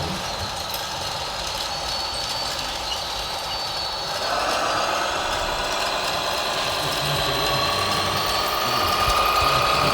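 Motors of radio-controlled model construction machinery running: a steady mechanical whir, then about four seconds in a motor whine rises in pitch, grows louder and holds.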